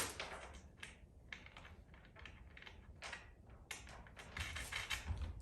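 Faint, irregular light clicks and taps of small metal hardware, nuts being threaded onto bolts by hand.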